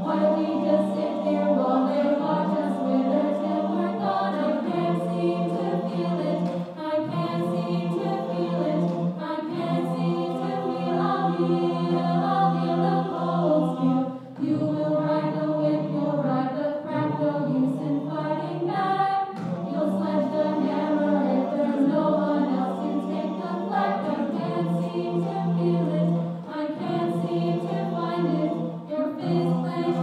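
Mixed-voice choir singing a cappella, several parts at once, with held low notes sounding under moving upper lines.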